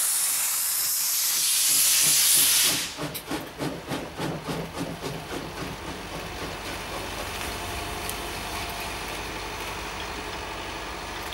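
Steam hissing loudly from a P8 steam locomotive, then the locomotive's exhaust chuffing about four beats a second as it pulls away, the beats fading into a steady rumble.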